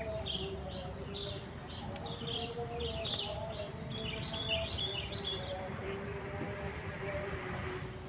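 Birds chirping: scattered chirps with a short, very high-pitched call that recurs every two to three seconds, over a faint steady hum.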